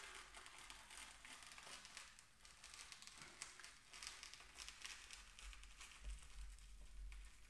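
Faint, fine crackling and tearing of a Dover sole's rough skin being peeled off the flesh by hand, pulled back through a cloth towel.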